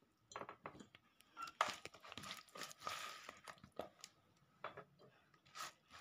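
Hand scooping oily green chilli pickle from a bowl and packing it into a glass jar: faint soft scrapes and squelches, with a scatter of small clicks and clinks against the glass.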